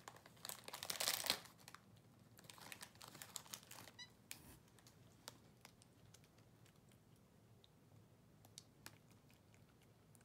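Plastic snack bag of pistachios crinkling as a capuchin monkey paws and pulls at it, in bursts over the first four seconds, then only faint scattered clicks.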